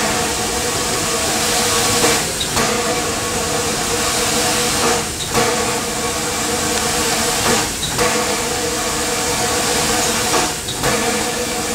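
Class 52 'Kriegslok' 2-10-0 steam locomotive moving slowly, with steam hissing steadily from its cylinder drain cocks. The hiss dips briefly about every two and a half seconds as the driving wheels turn, and a few light knocks come from the running gear.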